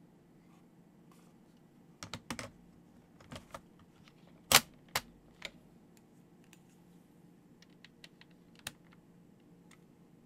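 Keys being pressed on an Epson HC-20's SMK linear mechanical key switches: separate clacks with pauses between, a quick cluster about two seconds in, the loudest single clack at around four and a half seconds, then a few faint ticks near the end.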